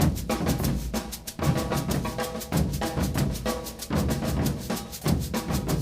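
Brazilian percussion ensemble playing an ijexá (afoxé) rhythm: dense, steady drum strokes.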